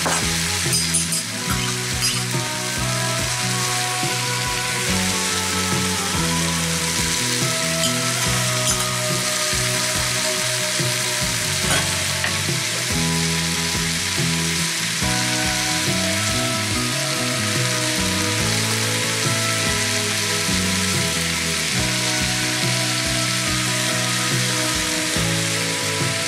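Mushrooms and mixed vegetables sizzling steadily in a frying pan, with a few light clicks about a second in.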